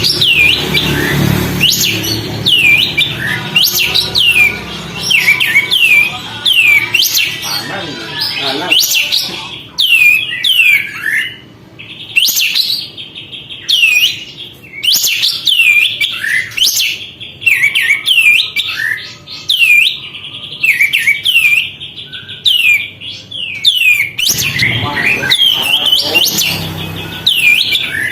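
Kapas tembak bulbul singing in rapid, chattering phrases of short whistled notes that drop steeply in pitch, several a second, with a brief lull about eleven seconds in.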